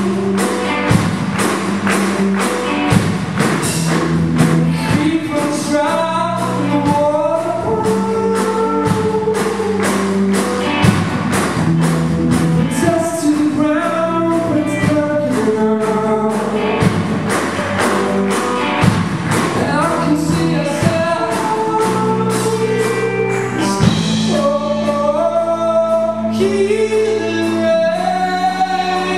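Live band playing a song with a male lead singer: drum kit keeping a steady beat under guitars and bass, the vocal line carrying the melody.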